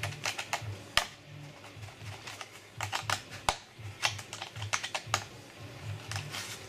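Irregular sharp clicks and taps of small plastic parts being handled and fitted: a model plane's control horn and its backing plate.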